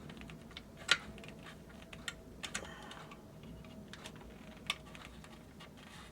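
Small plastic clicks and scrapes as a screwdriver prises at the plastic case of a Honeywell H450EN carbon monoxide detector to free one of its latch hooks. The sharpest click comes about a second in, with a few lighter ones after.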